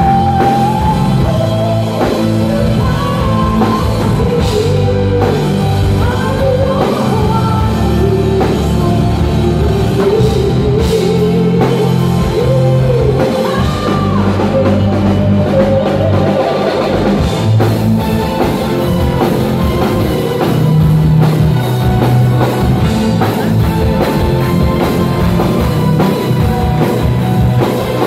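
Live symphonic metal band heard from the crowd: a woman sings lead over drums, bass and guitars. The vocal drops out a little past halfway, leaving the band playing on.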